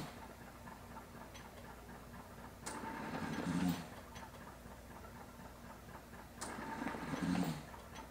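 Home mechanical ventilator delivering breaths through the breathing circuit: two airy breaths about a second long each, roughly four seconds apart, each ending in a low puff.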